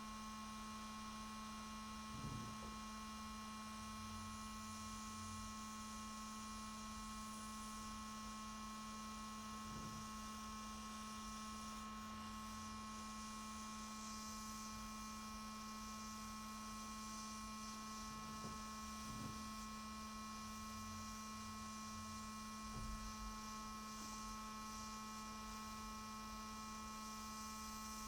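Steady electrical hum with a faint even hiss, broken by a few soft, faint knocks.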